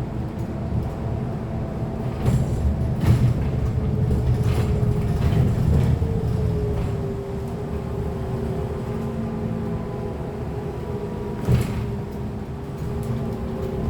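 Cabin sound of a Chinese-built city bus under way: steady low road rumble and drive hum, with a tone that slides down in pitch about six seconds in as the bus eases off. Several short knocks and rattles come through, the sharpest near the end.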